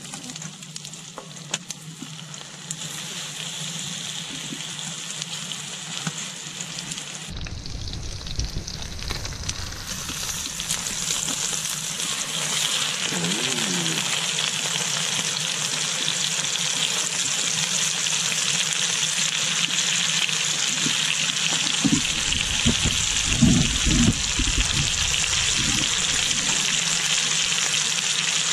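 Oil sizzling in a frying pan as garlic cloves fry, then a thick steak searing with the garlic, the sizzle growing louder from about ten seconds in. A few low knocks near the end as the meat is worked in the pan.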